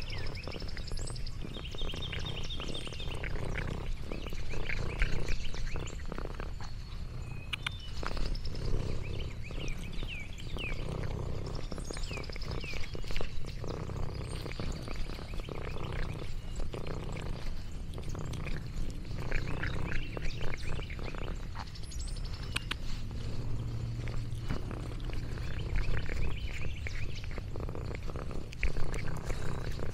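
Domestic cat purring close to the microphone: a steady low rumble.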